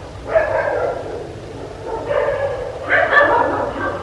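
A dog barking: three loud barks, each trailing off.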